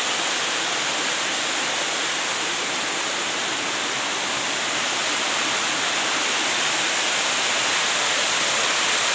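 Waterfall cascading over stepped rock: a steady rush of falling water, growing slightly louder near the end.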